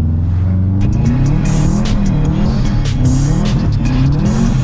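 Subaru WRX's turbocharged flat-four engine revving up over and over, its pitch climbing and dropping several times in quick succession, as the car is driven hard through snow.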